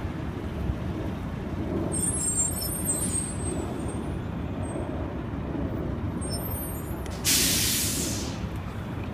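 Steady low rumble of vehicles, then about seven seconds in a sudden loud hiss of released air, a vehicle's air brake, fading away over a second and a half.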